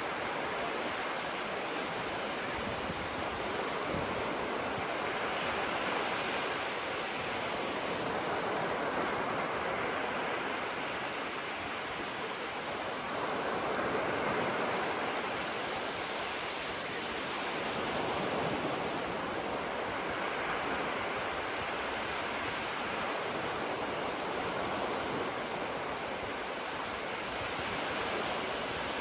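Gentle waves breaking and washing up on the shore: a steady hiss of surf that swells and eases every few seconds.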